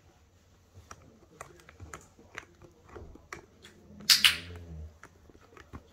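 A camera bumped about four seconds in, giving a short loud rustle and knock; around it, faint scattered small clicks and smacks of a young puppy mouthing and chewing food from a hand.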